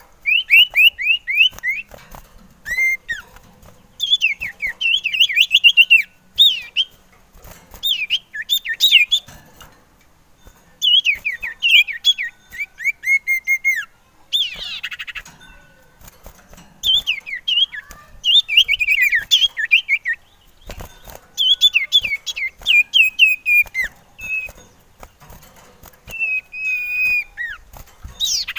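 Male common iora (cipoh/sirtu) singing: repeated phrases of quick, slurred chirps and whistles in bursts of one to three seconds, with short pauses between them. A brief harsh rattle comes near the middle and a longer held whistle near the end.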